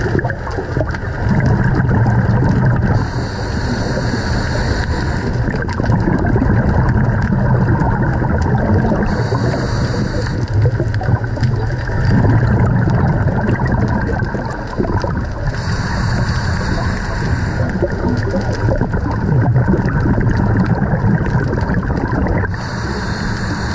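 Scuba diving underwater: a regulator's exhaled bubbles rush out in four bursts about six seconds apart, over a steady low rumble.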